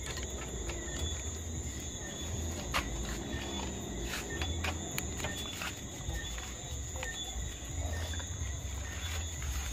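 Crickets chirping steadily, with scattered sharp pops and crackles from fish frying in a pan over the fire, and an uneven low rumble underneath.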